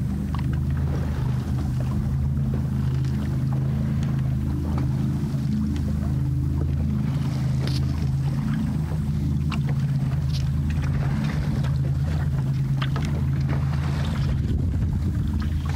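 Water splashing and swishing along the hull of a small sailing dory under way, in short irregular splashes over a steady low hum.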